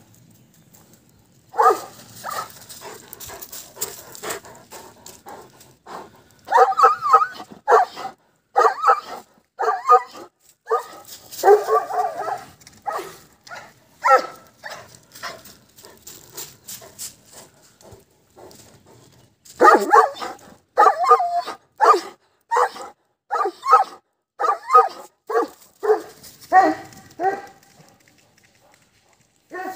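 Maremma sheepdog barking over and over at wolves, in two long volleys of loud barks with a lull of a few seconds in the middle.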